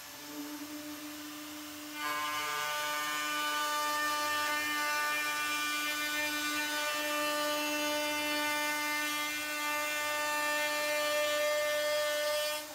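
Makita handheld router running at high speed with a chamfer bit. About two seconds in, the bit bites into the edge of an aluminum plate, cutting a 30-degree bevel. This gives a louder, steady whine made of many tones, which falls away abruptly near the end as the cut finishes.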